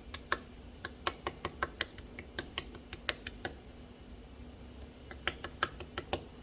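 Clear slime being squeezed and poked by hand, giving sharp popping clicks from trapped air, several a second. The clicks stop for a second or so past the middle and start again near the end.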